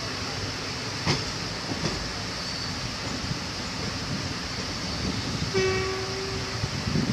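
A passenger train running with a steady rumble and rattle. About five and a half seconds in, the locomotive's horn sounds one steady note for about a second and a half.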